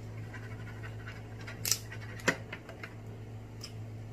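Crab leg shells being cracked and handled by hand close to the microphone: scattered clicks and scratches, with two sharper cracks a little under and just over two seconds in. A steady low hum runs underneath.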